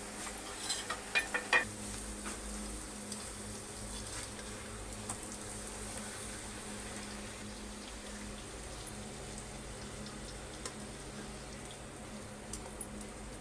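Bhatura sizzling as it deep-fries in hot oil in a steel karahi, a steady hiss throughout. A few sharp clinks of utensils against the pan in the first two seconds.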